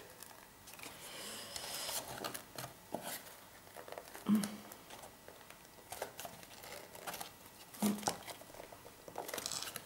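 Paper crinkling and rustling while being handled, with scattered light taps and clicks.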